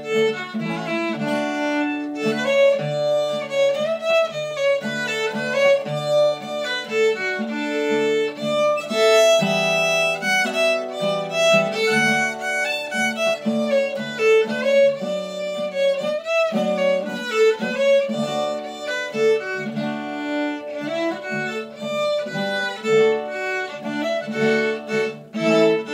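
Fiddle playing a slow waltz melody with long held notes, over strummed chords on a hollow-body archtop guitar.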